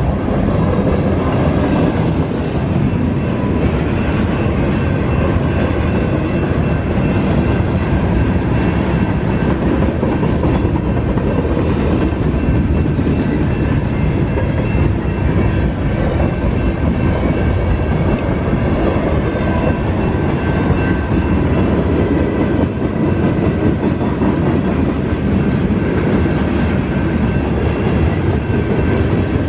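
Freight train of flatcars and tank cars rolling steadily through a grade crossing, with the crossing bells ringing as it passes. The bells keep ringing during the train's passage because the crossing gate mechanism is not going all the way down.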